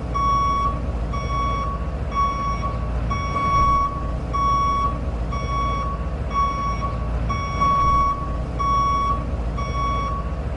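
Vehicle reversing alarm giving a regular, evenly paced beep-beep-beep, over a steady low engine rumble.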